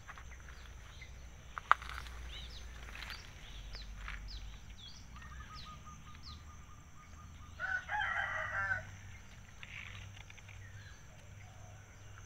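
A rooster crows once, about a second long, roughly eight seconds in, with small birds chirping now and then earlier on. A single sharp click comes near two seconds in.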